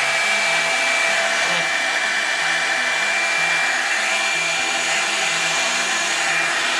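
Revlon hair dryer brush running steadily, blowing hot air: a steady rush of air with a high, steady whine from its fan motor.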